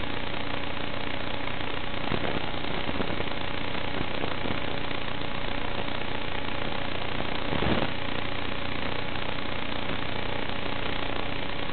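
Steady static hiss with a few faint constant hum tones, the kind of noise an analog FPV video receiver puts on its audio channel. It swells briefly about two-thirds of the way through.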